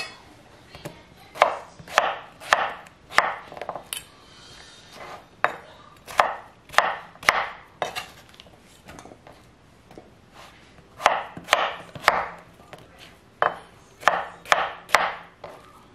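Santoku knife dicing zucchini on a wooden cutting board: sharp knife strikes against the board in quick runs of four to six, with short pauses between the runs.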